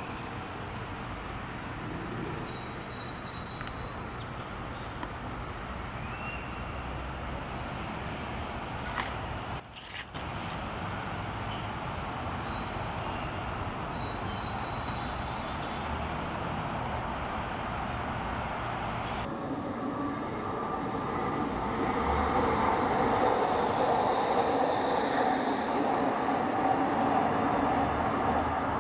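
Steady rumble of distant vehicles, getting louder over the last several seconds, with a few faint high chirps in the first part.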